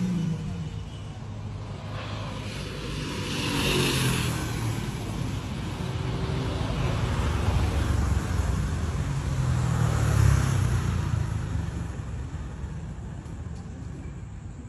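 Road vehicles passing, with engine and tyre noise over a steady low rumble. It swells about four seconds in and again around ten seconds, then fades.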